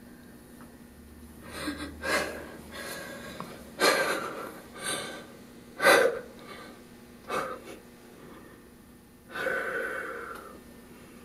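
A girl crying: a string of sharp gasping breaths and sniffs, with a longer shaky breath near the end.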